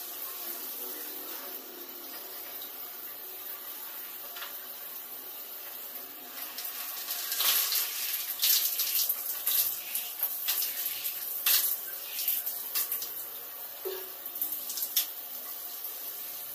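Water running steadily in a small tiled bathroom, with irregular splashes from about seven seconds in as cupped hands are rinsed under it.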